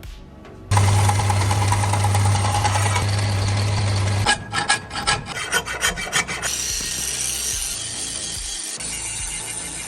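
Steel knife blade being worked with abrasive tools: a steady grinding run over a low motor hum, then a couple of seconds of quick back-and-forth filing strokes, then steady rubbing again.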